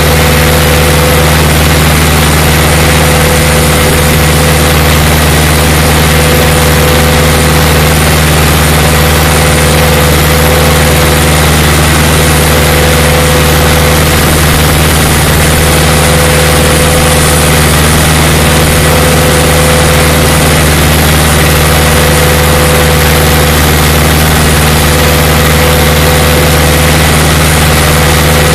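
Case IH 845 tractor's diesel engine running loud and steady at a constant speed, a low drone with no change in pitch.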